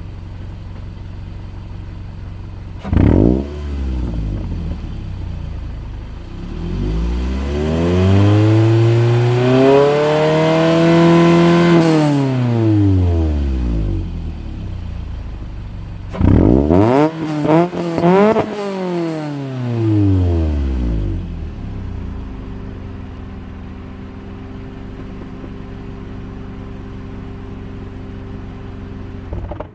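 2007 Scion tC 2.4-litre four-cylinder engine, through a Tsudo 4-2-1 header and Tanabe Medallion Touring exhaust, idling. It blips once about three seconds in, then rises slowly from about 1,000 to 5,000 rpm and falls back. It then gives a few quick high revs and settles to a steady idle. The note has a slight rasp, which the owner puts down to a small exhaust leak at the mid-pipe to S-pipe joint and the removed primary catalytic converter.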